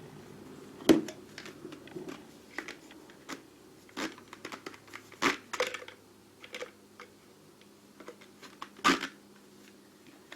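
Lathe tooling being handled in a toolbox drawer: plastic packaging crinkling and metal pieces clicking and knocking, with the sharpest knocks about a second in, past the middle, and near the end.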